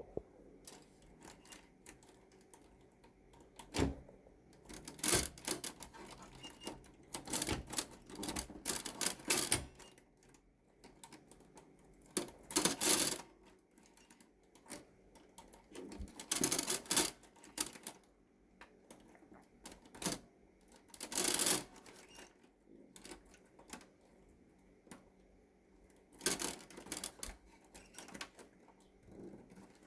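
Typewriter in use: bursts of key and typebar clacks in irregular groups, separated by pauses of a second or more.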